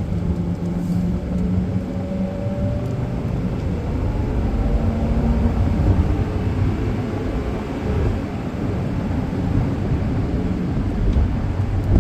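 Car driving: a steady low engine and road rumble, heard from inside the cabin.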